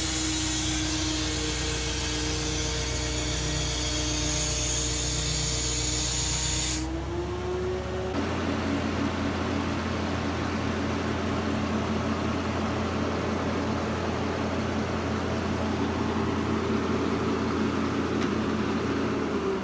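Boatyard travel lift's engine running steadily. About seven seconds in its pitch rises, and about a second later the sound changes abruptly to another steady running note.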